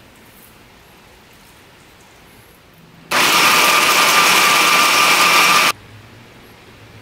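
Electric hand blender with a chopper-bowl attachment running once for about two and a half seconds, grinding boiled chickpeas and soy milk into hummus. It is a steady motor whine with a churning rush that starts about three seconds in and cuts off suddenly.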